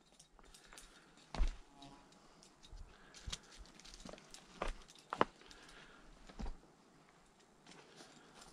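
Faint, scattered knocks and clicks of a climber moving over rock, four of them sharper than the rest.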